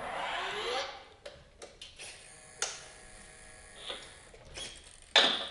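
A few light clicks, then about five seconds in a sudden, sharp door-slam sound played through the speaker of the RC truck's sound module: the simulated driver slamming the cab door as the truck is switched on.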